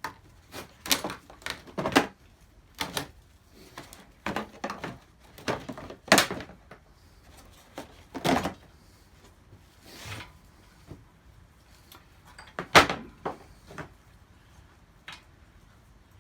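Irregular knocks, clunks and clatter of metal tools being handled on a workbench while a compression tester is fitted into a small engine's spark plug hole. The loudest knocks come about six, eight and thirteen seconds in.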